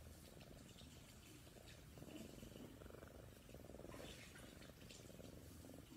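Sphynx cat purring close to the microphone, faint and steady, swelling and easing in rhythm with its breaths.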